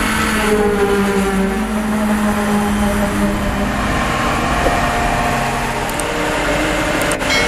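Engine of a VMP Bull SLM 4000 self-loading concrete mixer running steadily.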